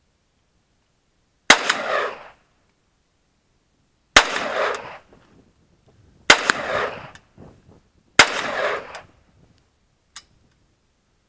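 Four single gunshots, each roughly two seconds apart and each trailing off in a short echo, then a faint click near the end.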